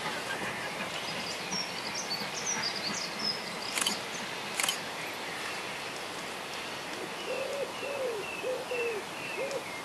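Outdoor ambience with birds: short high chirps in the first few seconds, two sharp clicks near the middle, then a run of short low hooting notes, about two a second, in the last three seconds.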